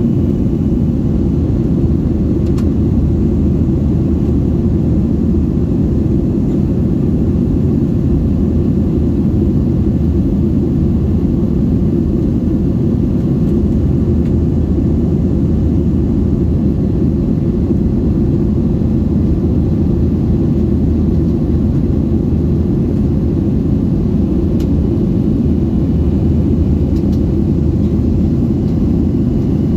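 Jet airliner cabin noise heard at a window seat in flight: a steady, unchanging low rumble of the engines and the air rushing past the fuselage.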